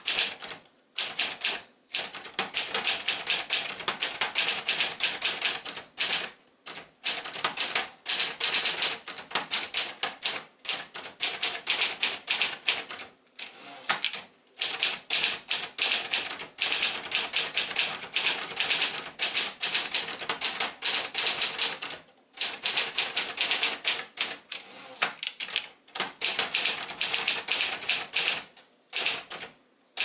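A 1976 Sears Achiever ultraportable manual typewriter, of Brother JP-7 design, being typed on: a fast, steady run of key strikes, broken by a few short pauses.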